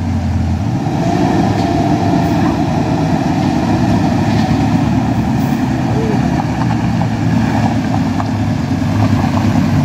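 Engines of trucks and a car climbing a steep dirt road, running steadily with a low hum.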